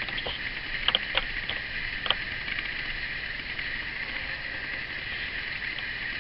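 Pencil drawing short lines on paper against a plastic set square, with a few light clicks and taps in the first two seconds, over a steady hiss.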